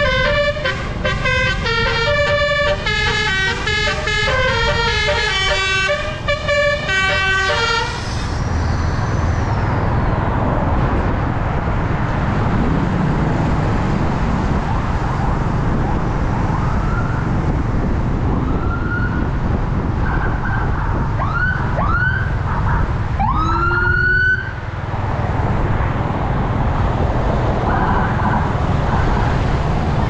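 Bus's Basuri telolet musical air horn playing a stepping multi-note tune, which stops about eight seconds in. Engine and road noise follow, broken by a few short horn blasts that slide up in pitch, the strongest about two-thirds of the way through.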